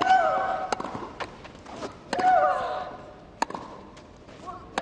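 Tennis rally: racket strikes and ball bounces crack back and forth, and a player lets out a loud grunt that falls in pitch with the shots at the start and about two seconds in.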